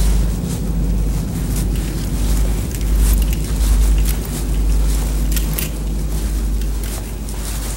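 Low rumble and handling noise from a handheld camera carried at a walk, swelling and easing with the movement, with scattered light clicks and rustles.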